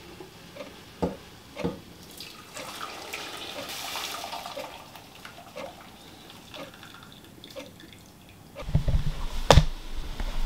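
Nearly finished maple syrup being poured from a large stockpot into a smaller pot, trickling and dripping with small clinks. Near the end a louder rumble starts and there is one sharp knock.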